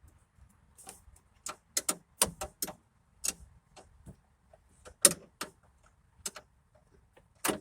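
Irregular sharp clicks and knocks of parts and hand tools being handled while a truck door's window regulator is taken apart, about a dozen short strikes, the loudest about five seconds in and another near the end.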